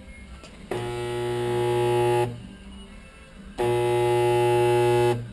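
Resistance spot welder buzzing with transformer hum as it passes welding current through the ejector rail and receiver, twice, each buzz about a second and a half long and steady.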